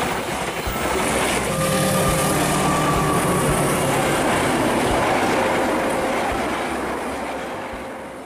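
Passenger train carriages rolling past close by, wheels clacking over the rail joints. About a second and a half in it gives way to a second passing train, with a thin steady squeal for a couple of seconds; the sound fades out near the end.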